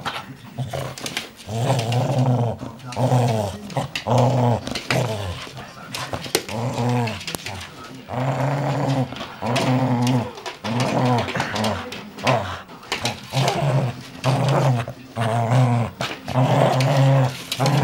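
A dog growling in play, a long run of short growls one after another with brief breaks between them.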